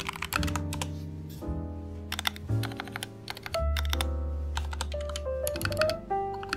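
Typing on a Royal Kludge RK-68 60% mechanical keyboard with lubed linear red switches and clipped, lubed stabilizers, keystrokes coming in quick runs with a short pause about a second and a half in. Music plays underneath.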